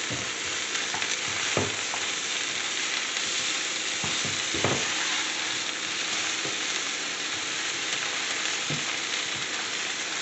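Skinless chicken leg quarters browning and sizzling steadily in a frying pan. Metal tongs give a few short knocks against the pan as the pieces are turned.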